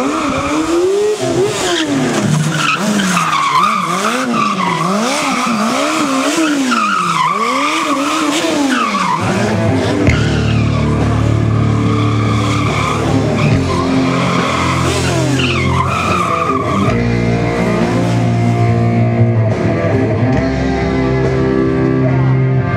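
Sport motorcycle engine revving up and down about once a second, with tyres squealing as the bike drifts and spins on asphalt. About nine seconds in, rock music starts and carries on over the engine and the squealing tyres.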